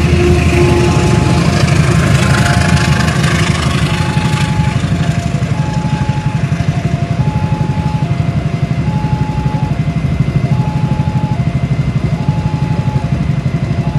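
Level-crossing warning alarm sounding an alternating high-low two-tone chime, about one pair every second and a half, over the steady rumble of passenger coaches rolling through the crossing. The rushing noise is louder in the first four seconds or so.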